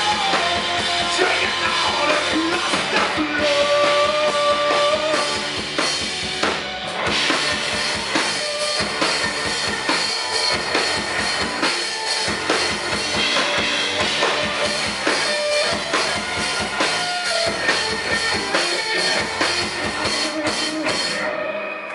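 Live rock band playing: a drum kit drives the beat under electric guitars and bass guitar, with long held guitar notes a few seconds in. The music stops just before the end.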